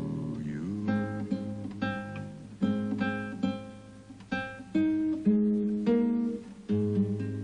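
Instrumental music led by plucked acoustic guitar: single notes and chords that ring and fade, over a held bass line.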